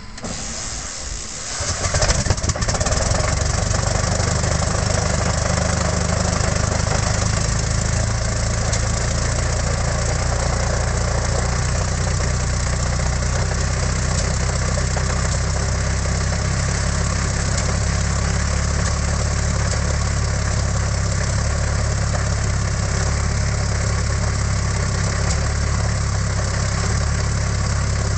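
Rolls-Royce Merlin III V12 aero engine of a Sea Hurricane being started: it turns over unevenly, catches with a loud burst about two seconds in, then settles into steady running. This is its first proper run in about ten years.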